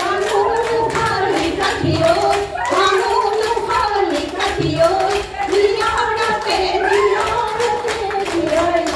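A group of women singing a Jeng Bihu folk song together, with rhythmic hand clapping.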